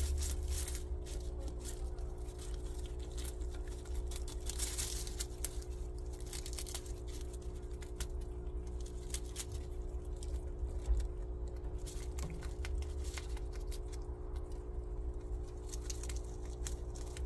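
Prairie dog gnawing and chewing fresh grass stalks: a quick, irregular run of small crunching and tearing clicks, over a steady low hum.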